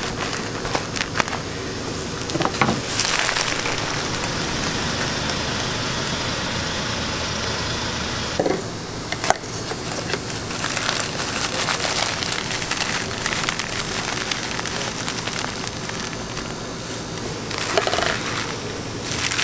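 Crackling and crunching as a knife cuts through a cotton-candy roll packed with crunchy cereal and candy pieces. Scattered clicks come over a steady hiss of background noise.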